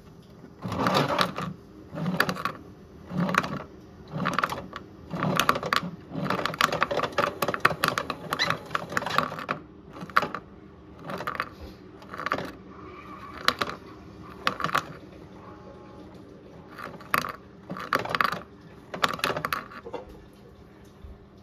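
Toy front-loading washing machine running a wash cycle: a rattling whir from its drum and small motor, with the wet load sloshing, comes in short bursts about once a second, turns more irregular, and stops near the end as the drum comes to rest.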